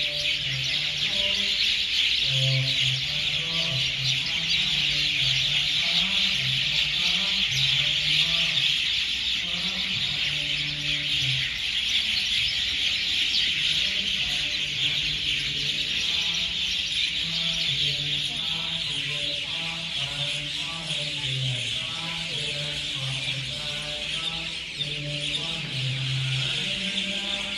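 A dense chorus of many birds chirping at once from roosting trees, steady throughout. Underneath it, low monotone Buddhist chanting carries on.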